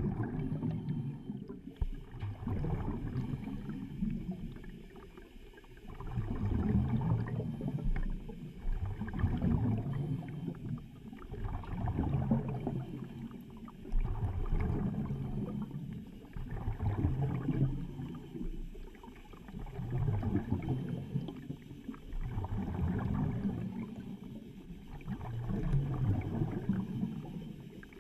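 A diver breathing through surface-supplied diving gear underwater: exhaled bubbles gurgle from the exhaust in regular swells, one about every two to three seconds.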